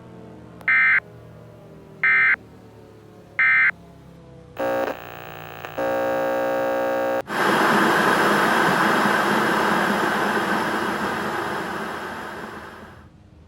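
Three short Emergency Alert System end-of-message data bursts, the warbling digital SAME tones, each a fraction of a second and about a second and a half apart. A harsh buzzing tone follows, first briefly and then held for about a second and a half. It gives way to loud static-like hiss that fades out near the end.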